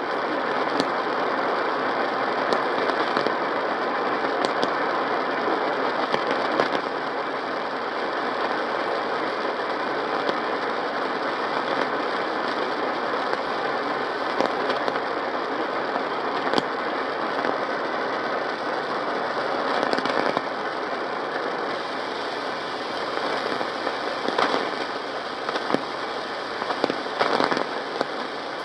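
Radio static from a weak broadcast signal: a steady hiss with scattered crackles and clicks.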